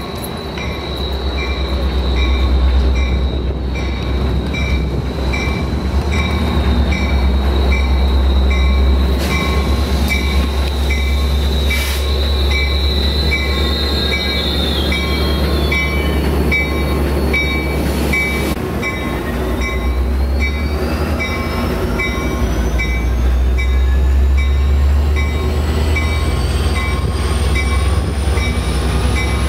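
Metrolink F59PHI diesel locomotive and commuter train passing at close range, with a steady low engine rumble and high wheel squeal. A bell dings about twice a second throughout. In the last ten seconds a whine rises steadily in pitch.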